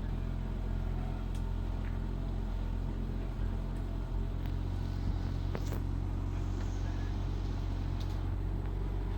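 A steady low motor hum with a few light clicks.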